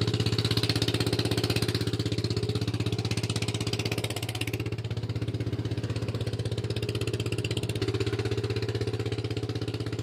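An engine idling steadily, with an even, fast chug.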